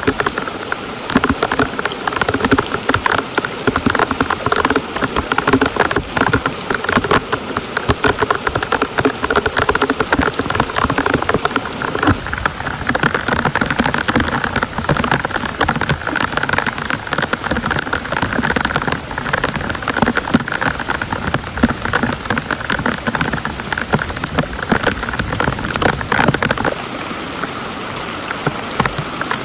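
Heavy rain hitting a camping tarp and tent: a dense, steady patter of drops that eases slightly near the end.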